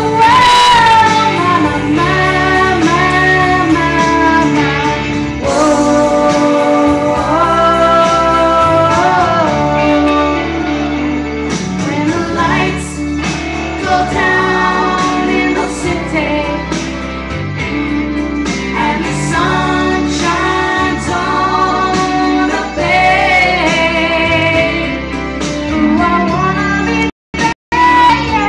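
A woman singing a song over music with guitar, performed live in a bar. The sound cuts out twice for a split second near the end.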